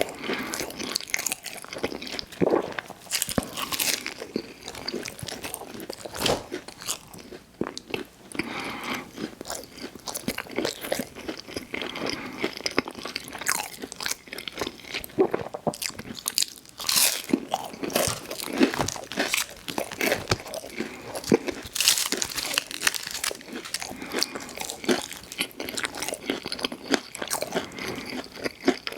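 Close-miked eating: irregular crunchy bites and chewing of food.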